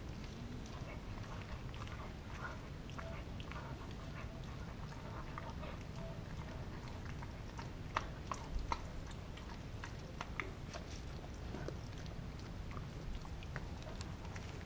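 A mixed-breed dog gnawing and chewing a frozen raw turkey steak, with irregular wet crunches and clicks of teeth on the meat, a few sharper ones close together about eight seconds in.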